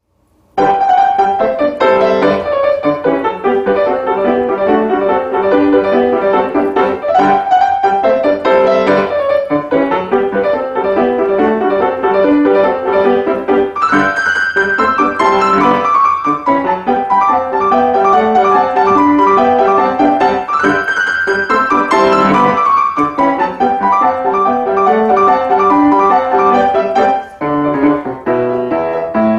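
Piano music playing steadily, starting about half a second in.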